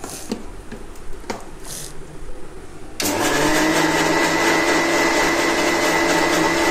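Electric mixer grinder (mixie) with a steel jar, blending a yogurt and chocolate mixture. It starts abruptly about three seconds in, after a few light knocks, and then runs at a steady whir.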